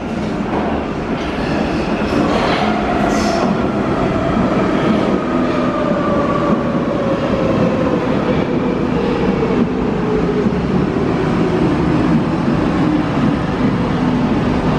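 Munich U-Bahn train arriving along an underground platform, getting louder as it comes in, with a whine that falls steadily in pitch as it slows. A brief high squeal comes about three seconds in.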